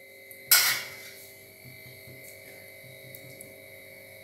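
A single sharp clank of a steel spoon against a stainless steel pan about half a second in, dying away quickly, then a faint steady hum.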